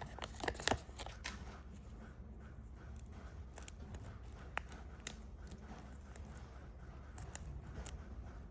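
Candy wrappers and plastic packaging being handled: scattered crinkles and sharp ticks, a cluster in the first second, then sparser.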